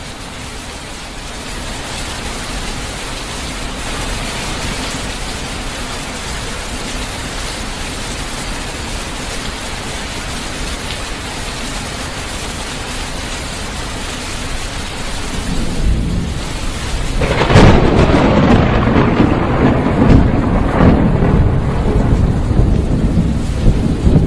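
Steady rain hissing, then about two-thirds of the way through a sudden loud crack of thunder followed by heavy rumbling.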